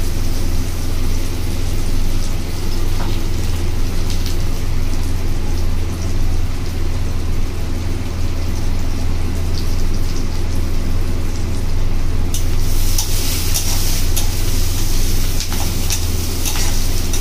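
Sliced onions and dried red chillies frying in a kadhai, stirred with a metal spatula: light scrapes and taps over a sizzle that turns louder and hissier about three-quarters of the way through. A steady low hum runs underneath.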